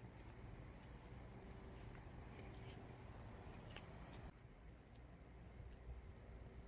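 Near silence with faint insect chirping: short high chirps, about three a second, in an even rhythm.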